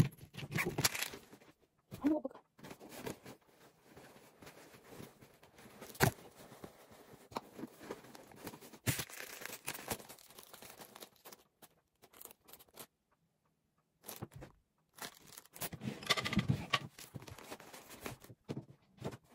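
Rustling and crinkling of a fabric backpack, a canvas tote bag and papers being handled and packed, with scattered light knocks.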